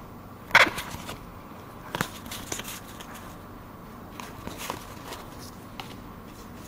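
Pokémon trading cards being flipped through and handled: a few sharp flicks and snaps of card stock, the loudest about half a second in, with lighter clicks after.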